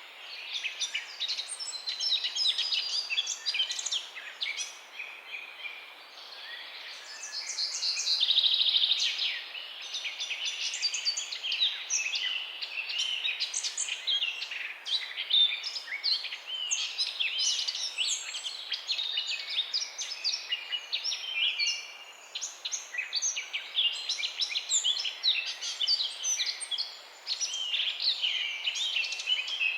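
Many small birds chirping and singing together, dense overlapping high chirps and trills, over a faint steady background hiss. A louder buzzy trill stands out about eight seconds in.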